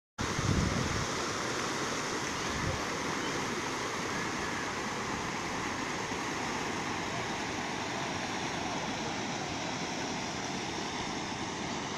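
Floodwater of a swollen river rushing past the bank, a steady, even noise of moving water, with a couple of brief low bumps near the start.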